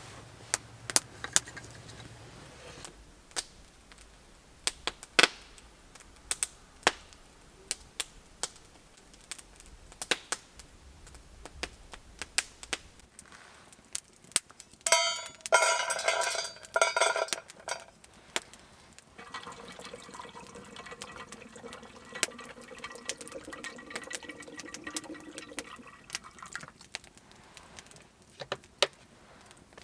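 Camp cooking and handling sounds: scattered clicks and knocks of utensils and gear, a loud splashing pour of liquid about halfway through, then a steadier, fainter sound for several seconds.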